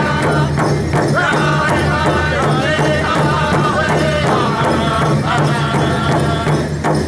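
Pow wow drum group singing in chorus while striking a large rawhide drum together with beaters in a steady beat.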